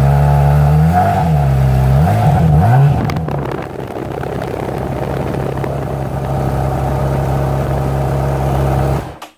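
2008 Honda CBR600RR's inline-four running on its stock exhaust, blipped three times in quick succession between about one and three seconds in, then idling steadily until it is switched off near the end. The note through the stock muffler is kind of muffled.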